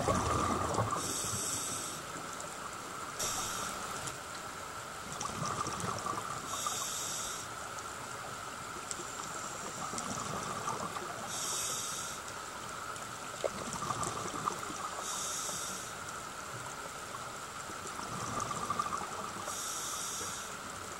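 Scuba diver breathing through a regulator underwater: a short hissing inhale about every four to five seconds, with a low rumble of exhaled bubbles between.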